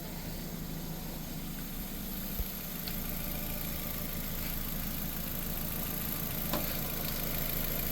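2006 Nissan Sentra's 1.8 L four-cylinder engine idling steadily while it warms up after a cooling-system refill, with its thermostat not yet open. A light click sounds twice.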